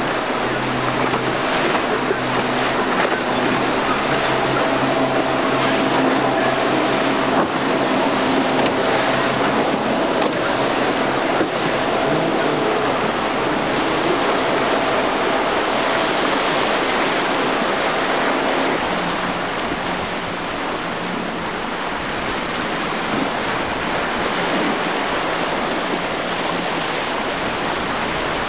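Waves and churning water in a rough inlet, with the steady hum of boat outboard engines running under the water noise. The engine hum shifts to a slightly higher pitch about two-thirds of the way through.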